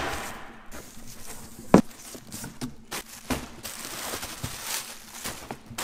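A cardboard shipping box being opened by hand, its plastic padding and bubble wrap rustling and crinkling as they are pulled aside, with one knock of cardboard about two seconds in.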